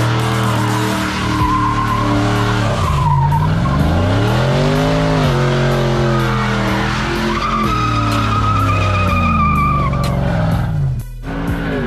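Chevrolet Silverado pickup doing a burnout: the engine revs up and down several times while the spinning rear tyres squeal and scrub on the pavement. The level dips briefly near the end.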